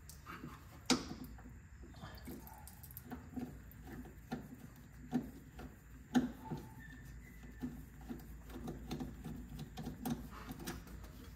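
Irregular small clicks, taps and clinks of hands working loose fuel-line fittings and hardware under a vehicle, with a sharper clink about a second in and another about six seconds in.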